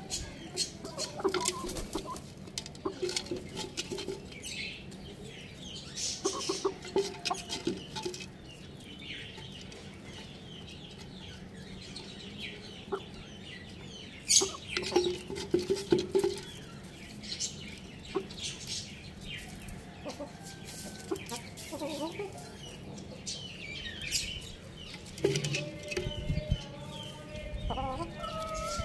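Hens clucking in short low calls while pecking at feed, with many quick sharp taps of beaks on the clay pot and concrete; a longer pitched call comes near the end.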